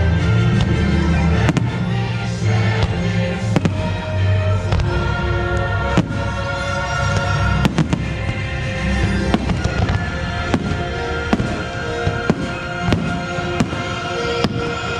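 Fireworks bursting in a rapid, uneven run of sharp bangs and crackles, several a second at times, over the show's loud music soundtrack.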